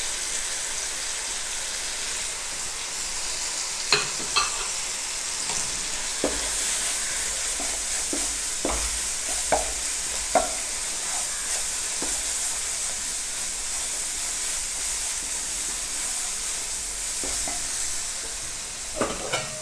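Spice masala frying in oil in a pan with a steady sizzle, as roasted cornflour is stirred in; a spoon knocks sharply against the pan now and then.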